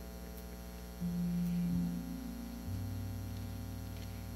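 Steady electrical hum from the sound system, with a few low sustained musical notes coming in about a second in and held on.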